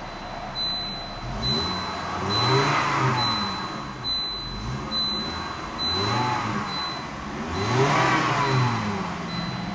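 A 1999 Volvo S70's turbocharged 2.4-litre inline-five engine is revved in neutral several times, heard from inside the cabin. Its pitch rises and falls with each blip, and the highest rev comes about eight seconds in.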